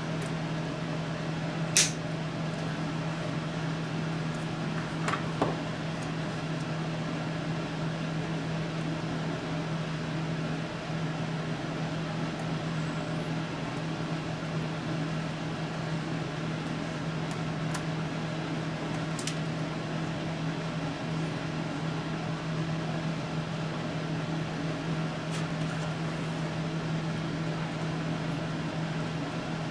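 Steady low machine hum, like a fan, under a few sharp clicks and taps of small parts and tools being handled on a workbench. The loudest click comes about two seconds in, with two more about five seconds in.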